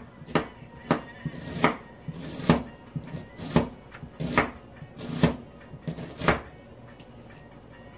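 Chef's knife slicing a halved onion thinly on a plastic cutting board: a knock on the board at each stroke, irregularly about one to two a second, stopping about six and a half seconds in.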